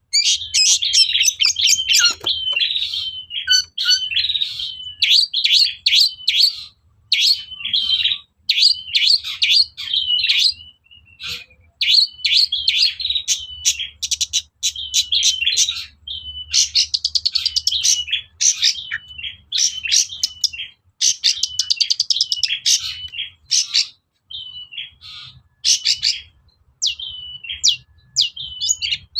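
Long-tailed shrike (cendet) singing a fast, varied chattering song of sharp chirps and short whistled notes in bursts with brief pauses, including a quick rattling trill about two-thirds of the way through.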